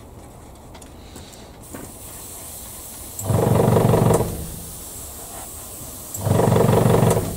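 Airbrush hissing as it sprays yellow primer, with two loud low buzzes about a second long, around three and six seconds in.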